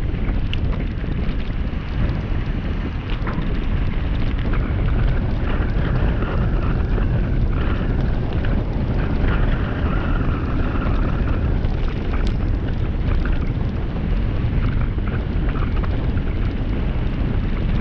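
Heavy wind buffeting on the camera microphone at about 30 km/h, over the rumble of tyres rolling down a rough, gravel-strewn road, with scattered small clicks and rattles.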